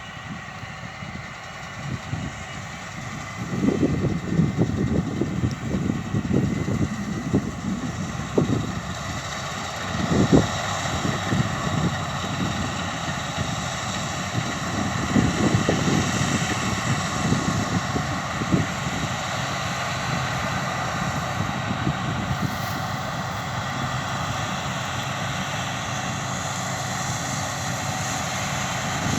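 Massey Ferguson Cerea 7278 combine harvester working a pass across the field: a steady engine and machinery drone with a broad hiss. A low rumble swells and fades over the first part and dies away past the middle.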